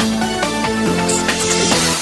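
Samsung Wave ringtone: an electronic dance-style track, a synth melody stepping between notes over a steady beat, with a swell of hiss in the second half.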